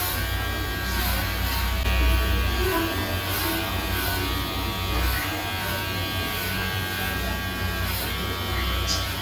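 Electric hair clippers buzzing steadily as they shave a head down to a buzz cut.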